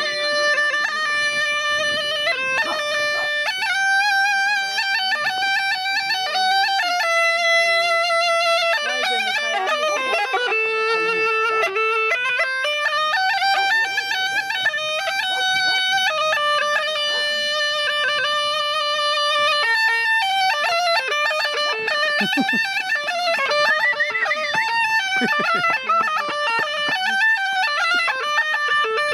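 Bulgarian gaida (bagpipe with a large white skin bag) playing a folk melody, the notes held in steps with quick ornaments between them.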